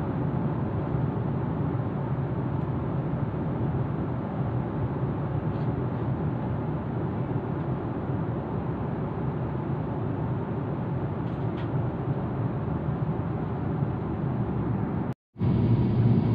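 Steady airliner cabin noise: an even, low rushing drone of jet engines and airflow. It cuts out for a split second about fifteen seconds in, then carries on a little louder.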